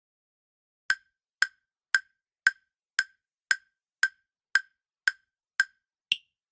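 A countdown-timer sound effect: ten short, evenly spaced ticks, about two a second, followed by one final higher-pitched tick.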